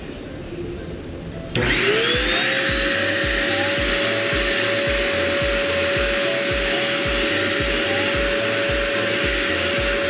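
JK-8 1000 W handheld vacuum cleaner switched on about a second and a half in: its motor spins up with a quickly rising whine, then runs steadily with a high whine over a rush of air through the crevice nozzle. Background music with a steady beat plays underneath.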